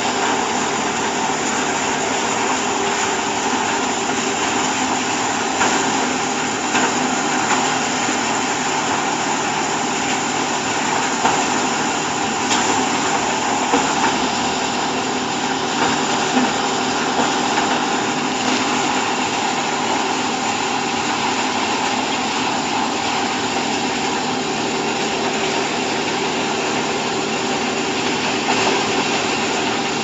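Hydraulic grass silage baler running, its electric motor and hydraulic pump making a steady, dense mechanical noise. A few brief knocks stand out over it.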